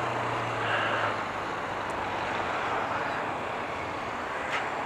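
Road traffic going by close to a stationary motorcycle as a steady rushing noise, with a low engine hum that fades out about a second in.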